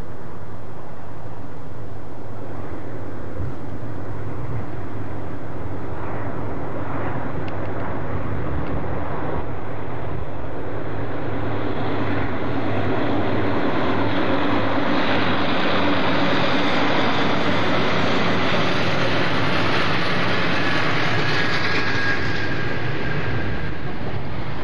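Santa Fe diesel freight locomotives pass with their engines running, followed by the growing rush and rumble of the freight cars rolling by on the curve. There is a brief high squeal near the end.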